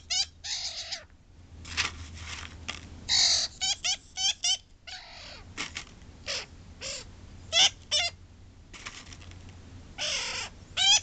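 A young pet bird, not yet two months old, giving its begging calls: many short, harsh calls of bending pitch, some in quick runs of two or three. They are the calls of a fledgling that can feed itself but still begs to be fed.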